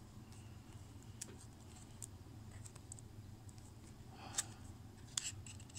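Glossy trading cards being handled and peeled apart: faint scattered clicks, with a brief louder rustle a little after four seconds and another shortly after, as cards that are stuck together are separated.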